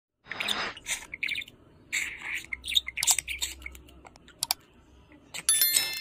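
Budgerigar chattering: short chirps and clicks in scattered bursts, with a brief pause. Near the end a bright bell-like chime sounds over it.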